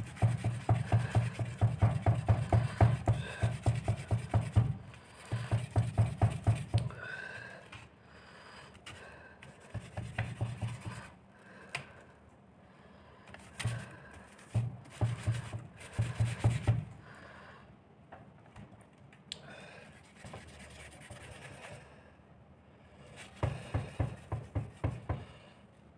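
Quick back-and-forth rubbing of a folded cloth-backed sandpaper pad on a hot electric iron's metal soleplate, scrubbing off melted tablet residue and grime. It comes in several bursts of rapid strokes with pauses between, the longest burst first.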